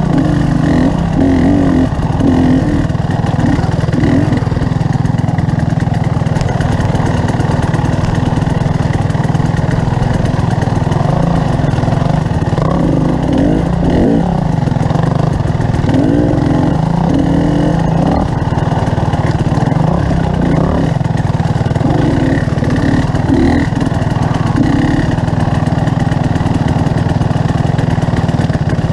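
Motorcycle engine running steadily while riding, with a strong, even low drone and no let-up.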